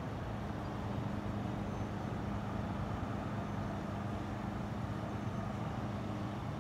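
Steady low mechanical hum over an even rumble, like distant motor traffic.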